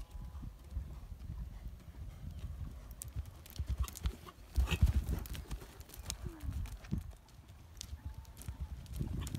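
Horse's hoofbeats cantering on a loose-chip arena surface, with a heavier cluster of thuds about halfway through as it lands over a jump.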